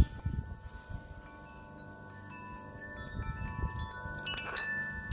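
Wind chimes ringing, several clear tones overlapping and slowly fading, with new strikes joining now and then, over a low rumble.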